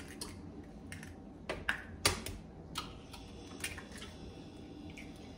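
Eggs being cracked open over a glass blender jar: a handful of short, sharp clicks and cracks of eggshell at irregular intervals, the loudest about two seconds in.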